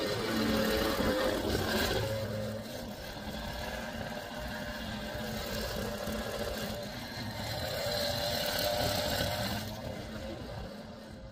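Hedge trimmer running and cutting. It is loudest in the first two seconds and again around eight to nine seconds in, then dies away near the end.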